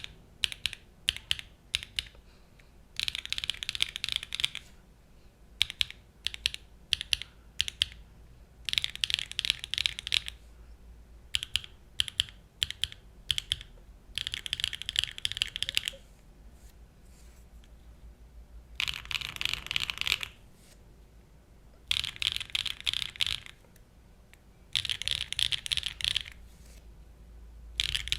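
Mechanical keyboard with stock BSUN TaiChi linear switches on an aluminium plate, no foam, and GMK keycaps being typed on. Single separate key presses alternate with short runs of fast typing, about six runs in all.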